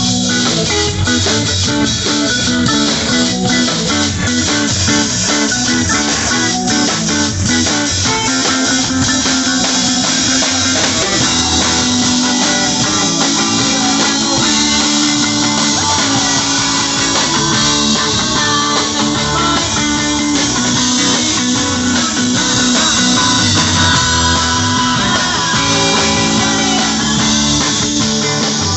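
Live band playing loudly: electric guitars and bass over a drum kit, steady throughout.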